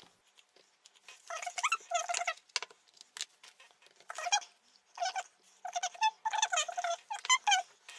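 A dog whining, a run of short wavering whines in bouts of one to several.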